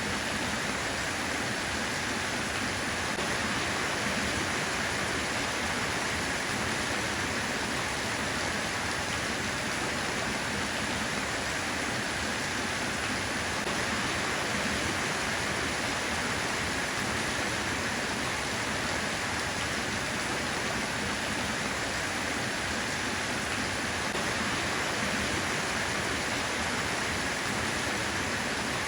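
Rain falling steadily, a dense and even hiss without distinct drops or changes.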